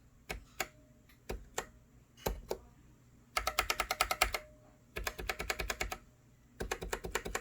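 Gateron brown mechanical keyboard switches being typed on: a few slow pairs of keystrokes, then three quick runs of rapid typing, each stroke a sharp clack.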